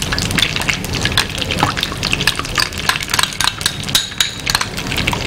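Bread slices deep-frying in hot cooking oil in a kadai: a steady dense sizzle with many small crackles.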